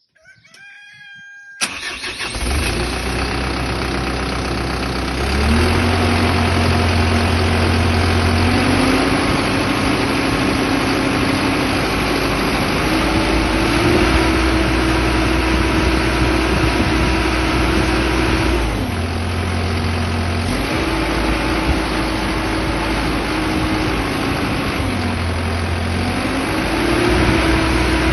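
Diesel engine of a CAT 312DL tracked excavator started: a brief whine as it cranks, then it catches about two seconds in and runs, its speed rising and falling several times.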